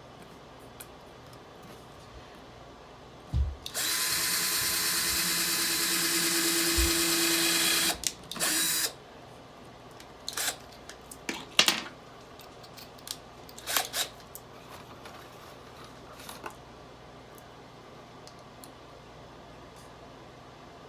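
Power drill drilling a pilot hole with a 3/32 bit into a board at the rack's corner: a steady run of about four seconds, then a short second burst. Scattered clicks and knocks from handling the drill and boards follow.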